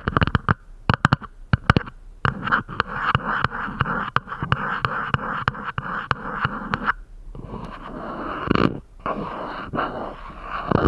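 Close-up ASMR tapping on a glass coffee tumbler: a quick run of taps, then about two seconds in a continuous rasping scratch over the glass, which pauses briefly and starts again.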